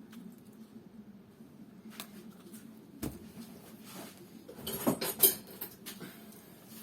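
Small metal tools being handled on a workbench: a couple of light clicks, then a short clatter of clinks about five seconds in.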